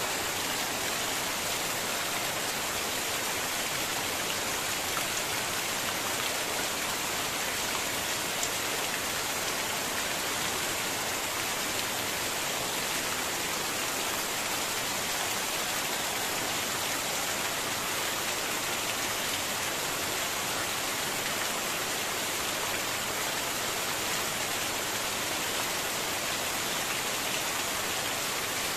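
Heavy rain falling in a steady downpour, with water pouring off the edge of a roof.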